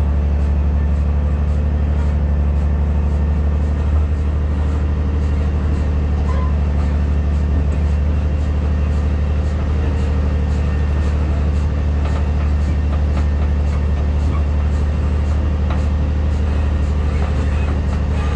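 Dump truck engine running at a steady low drone as the loaded truck creeps along tailgate-spreading gravel. A faint regular ticking comes about twice a second throughout.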